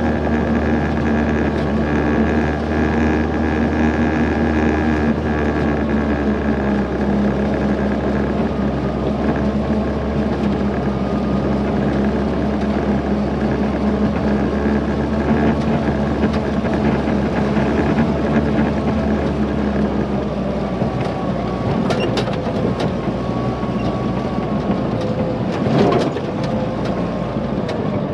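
M151 military jeep's four-cylinder engine running steadily as it drives a dirt track, with a couple of sharp clunks and rattles from the body near the end.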